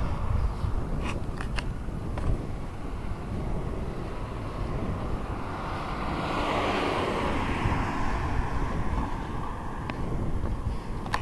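Wind rumbling on the microphone outdoors, with a broad rushing sound that swells about six seconds in and fades again over a couple of seconds, and a few faint clicks.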